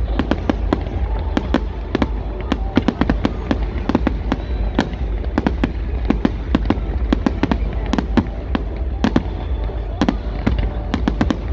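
Fireworks going off: a rapid, irregular run of sharp cracks and bangs, several a second, over a constant low rumble.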